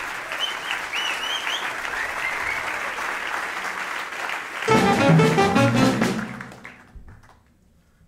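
Audience applause with a few whistles, then about halfway through a loud burst of music from a jazz quartet (piano, double bass, saxophone, drums) that rings and fades away over about two seconds.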